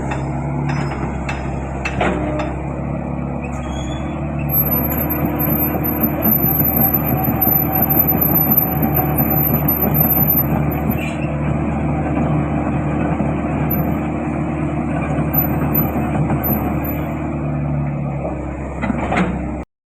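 Hitachi ZX110 excavator's diesel engine running steadily, a little louder between about four and eleven seconds in, with a few sharp knocks near the start and one shortly before the sound cuts off suddenly at the end.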